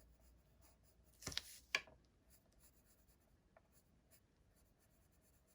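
Watercolour pencil rubbing on paper as the colour is blended in. It is mostly faint, with two louder strokes close together about a second and a half in.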